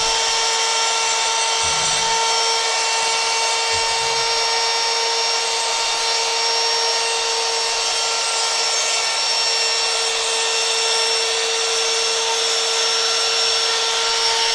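Cordless trim router with a Kaizen foam spinner bit running at a steady high speed while routing out Kaizen foam: a loud, even, high-pitched whine.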